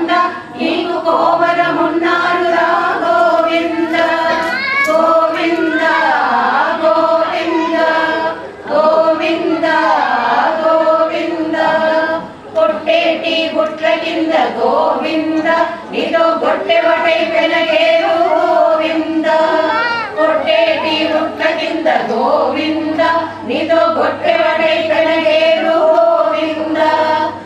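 A group of women singing a devotional song to Krishna together, with long held and gliding notes in continuous phrases.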